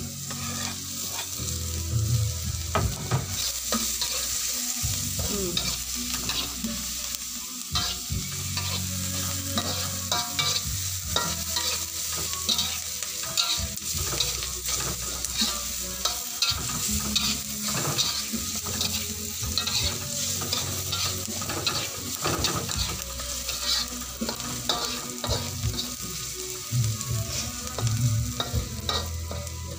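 Chopped onions sizzling in hot oil in a wok, stirred with a spatula that scrapes and taps repeatedly against the pan.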